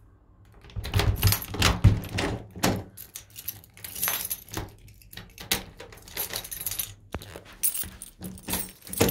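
Keys jangling on a keyring and clicking in the front door's lock as the door is locked, with a few heavier knocks about one to two seconds in.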